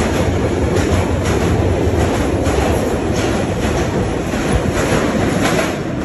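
London Underground tube train pulling out of the platform and running into the tunnel: a steady low rumble with a regular clicking of wheels over rail joints, easing off a little near the end as the last carriage leaves.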